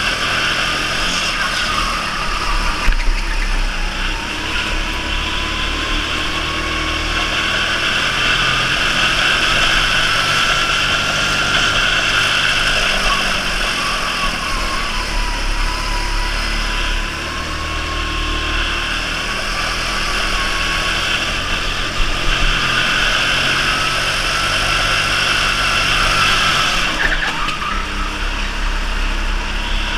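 Electric go-kart running flat out, heard from the driver's seat: a motor whine that rises and falls in pitch with speed through the corners, over steady tyre and wind noise, with a few short knocks.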